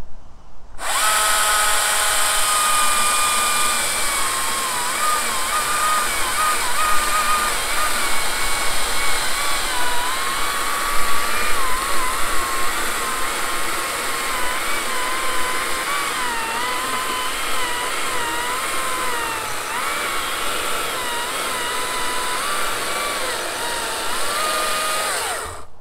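STIHL MSA 220 C battery chainsaw cutting through a log of dried Australian bloodwood. Its electric motor whine starts about a second in, wavers and dips in pitch under load as it bogs down a little in the hardwood, and stops abruptly near the end.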